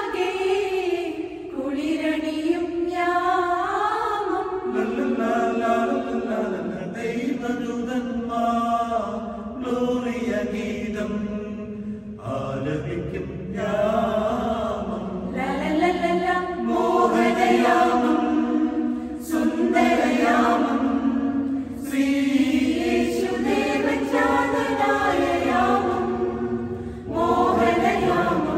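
Mixed church choir of women's and men's voices singing a Christmas carol in harmony, phrase by phrase with short breaths between lines.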